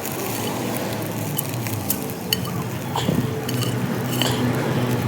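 A utensil clinking against a cooking pot as food is stirred: a handful of sharp clinks over a steady low hum.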